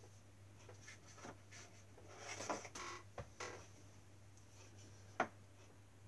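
Hands rummaging among small painting supplies: a short stretch of rustling and scraping about two seconds in, then a single sharp click near the end, over a faint steady low hum.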